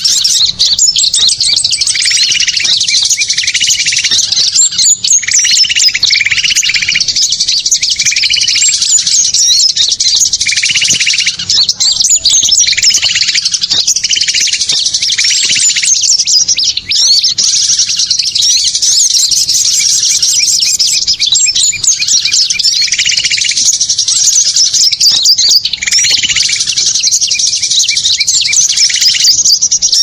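Bird-lure recording of many small songbirds calling at once: dense, high-pitched chirping and twittering that runs on without a break, with a lower repeated call coming in and out in runs.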